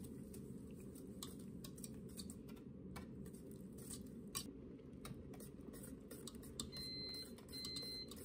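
Hand-held wire whisk stirring egg yolks and sugar in a stainless steel bowl, its wires making light, irregular ticks and clinks against the bowl over a low steady hum.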